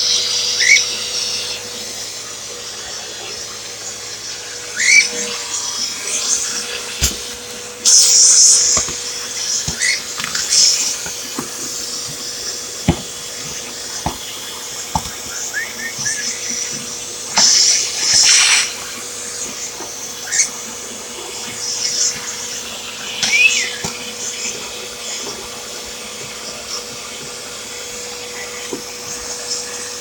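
Hoover vacuum cleaner running with a wand attachment, sucking up bird litter from a cage floor. A steady motor hum carries a high hiss that surges in bursts of about a second, with scattered clicks and a few short rising chirps.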